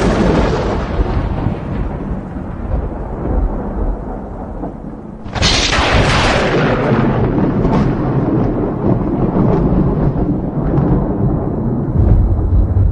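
Thunder: the rumble of a clap that has just struck, then a sharp crack about five and a half seconds in that rolls off into a long, low rumble, swelling again near the end.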